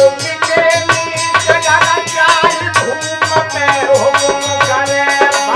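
A man singing a Hindi folk bhajan to harmonium and a dholak drum, the drum played in a quick, steady rhythm under the held harmonium notes.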